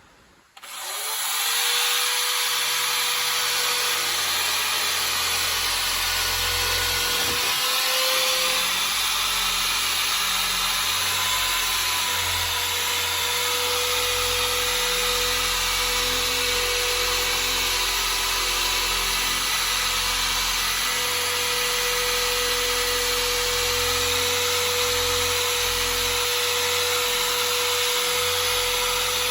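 Power drill spinning an abrasive scuff ball against the surface, scrubbing off residual glue in paint prep. It starts up about half a second in, then runs steadily with a constant motor whine over a rough scrubbing noise.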